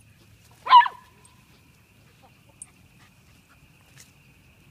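A dog barks once, a single short bark about a second in.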